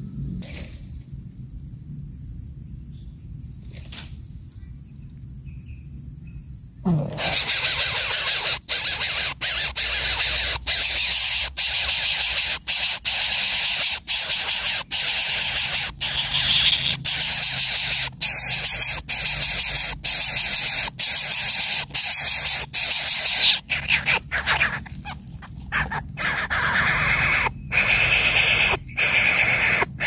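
Coucal nestling begging at the nest, a loud, harsh rasping hiss repeated with short breaks, starting suddenly about seven seconds in as the adult comes to feed it.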